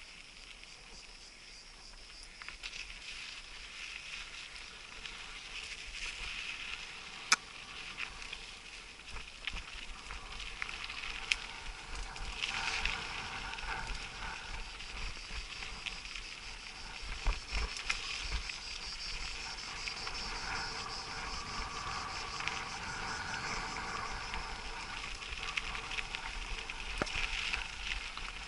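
Mountain bike ridden over a rough dirt trail: a low rumble from the tyres and frame with scattered sharp knocks and rattles from the bike. Steady high chirring of insects, such as crickets, runs underneath.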